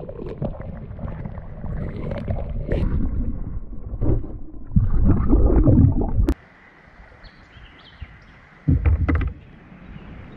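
Water sloshing and gurgling close to the microphone, mixed with knocks from handling. It is loud for about six seconds and cuts off suddenly, and there is one more short, loud burst near the end.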